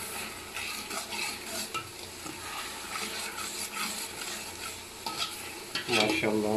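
A long metal ladle stirs and scrapes around a large aluminium pot, knocking against its sides. Meanwhile an onion-tomato masala sizzles as it fries in oil.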